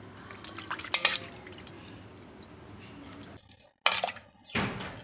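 Pieces of fish being washed by hand in a metal basin of water: water splashing and dripping, with small clicks of the fish and a knife against the aluminium bowl. A louder splash comes about four seconds in.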